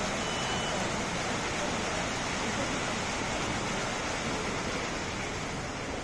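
Computer-controlled synchronized waterfall, a curtain of water drops falling into a basin: a steady rushing, splashing hiss of falling water.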